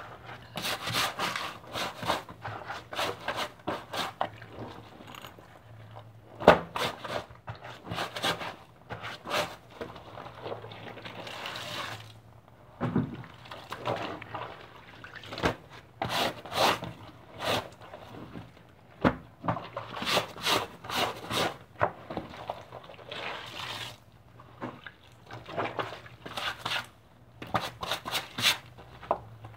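Water splashing and sloshing in irregular bursts as clothes are washed in water, with short pauses between clusters.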